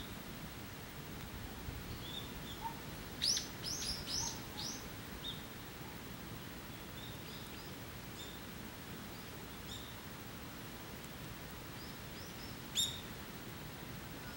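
Birds calling: a quick run of four high, falling notes about three seconds in, scattered faint chirps, and one sharp call near the end, over a steady faint hiss.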